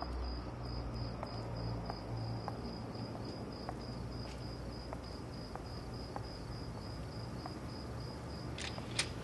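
Crickets chirping steadily, a high pulsing chirp repeated a few times a second. Under it are soft regular footsteps, about one every half second, and a couple of sharp clicks near the end.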